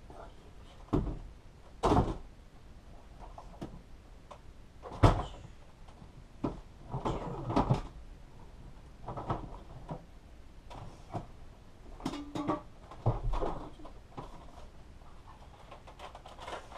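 Scattered knocks and brief rustling or scraping sounds, a few seconds apart, with three sharper bumps in the first five seconds.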